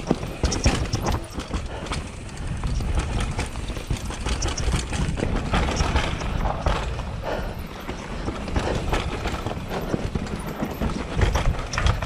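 Trek Session downhill mountain bike rolling fast over a dirt trail with roots and rocks: a steady rumble from the tyres, broken by frequent sharp knocks and rattles from the bike as it hits bumps.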